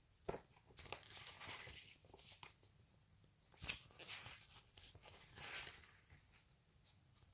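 Faint, irregular rustling and crinkling of snack packaging and paper being handled, with a few light clicks.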